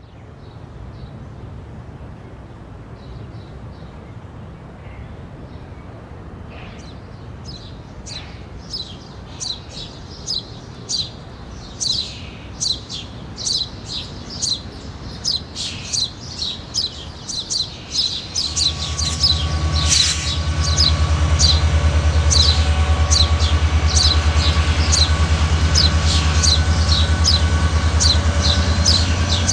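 A bird chirping over and over, about twice a second, growing louder. About two-thirds of the way in, the heavy low rumble of a passing diesel locomotive comes in and stays loud under the chirps, with a steady whine above it.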